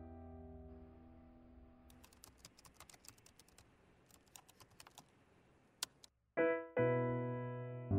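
Typing on a laptop keyboard: a quick run of key clicks lasting about three seconds, then a single keystroke, after a soft music chord fades out. Near the end, louder music starts.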